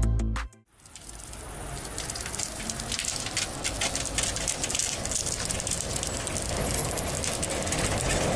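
Music cuts off about half a second in. Then comes an approaching tram, its wheels rolling on the rails with a continuous crackle of many sharp clicks, growing louder. The crackle comes from sparking between the wheels and the track, a sign of a poor electrical connection between wheel and rail, often caused by rain or fallen leaves.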